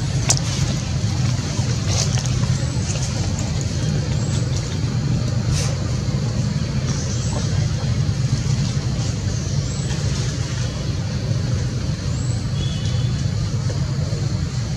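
A steady low rumble with faint high chirps recurring every second or two and a few soft clicks.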